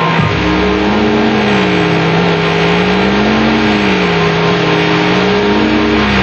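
Science-fiction UFO sound effect: a deep electronic hum that wavers slowly up and down, about once every two and a half seconds, with steadier higher tones joining just after the start over a loud rushing noise.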